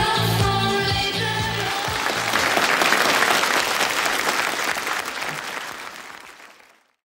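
A song's last bars, with drum beats, give way about a second and a half in to audience applause, which swells and then fades out to silence near the end.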